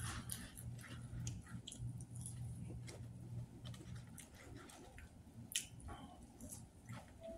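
Faint crinkling and rustling of a paper fry tray being handled, with fries being chewed, over a low steady hum that fades about four seconds in.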